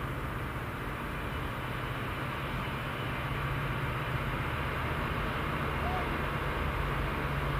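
Class 66 diesel freight locomotive's two-stroke engine running with a steady low drone, slowly getting louder as it approaches.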